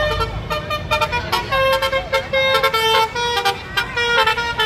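Tour bus's basuri telolet horn playing a quick melody of short, bright notes that step up and down in pitch, over the low rumble of passing traffic.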